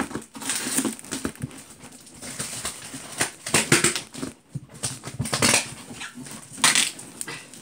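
Cardboard shipping box being forced open by hand, with irregular tearing, scraping and rustling of the cardboard flaps and tape.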